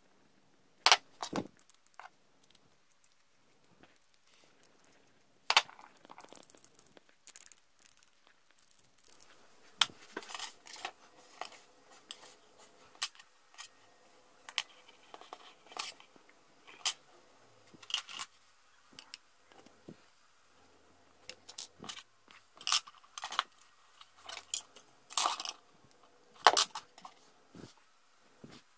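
Irregular sharp clicks, taps and light rustling as hands handle small parts: a brass tube and small 3D-printed plastic pieces on a tabletop. The loudest clicks come about a second in, about five seconds in, and in a cluster near the end.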